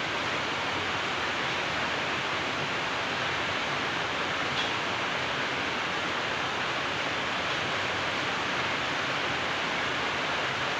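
A steady, even hiss of noise with no change in level, and one faint tick about four and a half seconds in.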